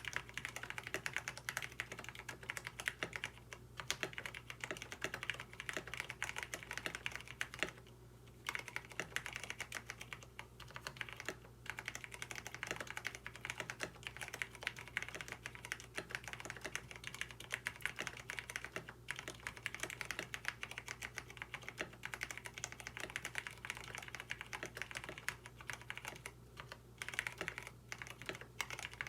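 Continuous fast typing on a KBD67 Lite mechanical keyboard with lubed Cherry MX Brown tactile switches, a stream of key clacks with a few short pauses. The owner calls the switches horribly scratchy and says that without switch films they make annoying "tic" sounds.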